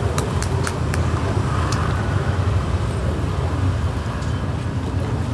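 Steady rumble of street traffic, motorbikes and scooters going by on the road, with a few light clicks in the first couple of seconds.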